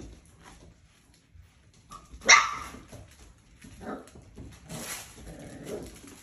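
Mini goldendoodle puppies barking as they play: one sharp, loud yap a little over two seconds in, then a few softer yips.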